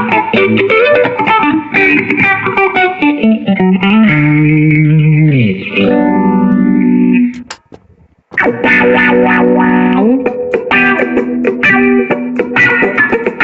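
Electric guitar played through a Line 6 POD HD300 multi-effects pedalboard: picked riffs, then held notes that slide down in pitch about five seconds in. The sound cuts out briefly before the eighth second, and playing resumes with a slide up.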